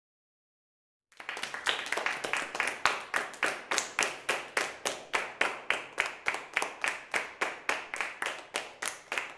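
Hands clapping in a steady rhythm, about four claps a second, starting about a second in.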